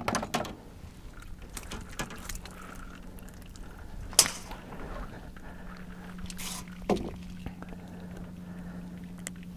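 A freshly landed perch being handled: scattered knocks and light wet handling noises, with a sharp knock about four seconds in and another near seven seconds. A steady low hum starts about two seconds in.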